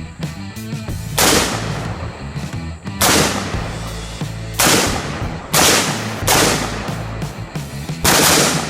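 Six single gunshots from a firearm at an uneven pace, one to two seconds apart, each with a short fading tail. Rock music with guitar plays underneath.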